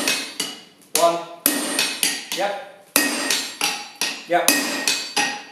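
Sledgehammer blows from a striker landing on a handled top tool (a flatter) held over hot steel on the anvil, roughly two blows a second. Each strike rings out briefly.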